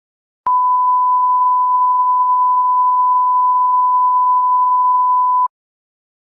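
A steady 1 kHz sine test tone, about five seconds long, starting and stopping abruptly: a broadcast line-up tone at the head of a TV programme tape.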